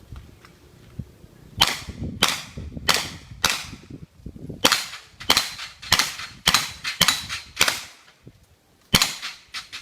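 Gunshots in a shooting-stage run: four shots about 0.6 seconds apart, a short pause, seven more at a similar pace, another pause, then two final shots.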